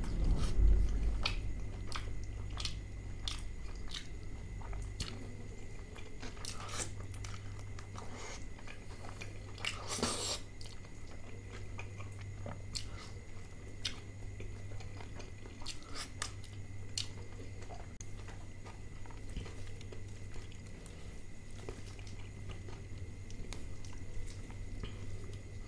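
A man chewing and biting mouthfuls of butter chicken with lachha paratha and naan, close to the microphone: irregular wet mouth clicks, with a louder noisy moment about ten seconds in, over a steady low hum.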